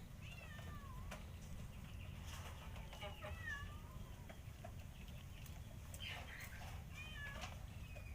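Stray domestic cats meowing while waiting to be fed, begging for food: short calls that fall in pitch, in about three bouts near the start, around the middle and late on, over a steady low rumble.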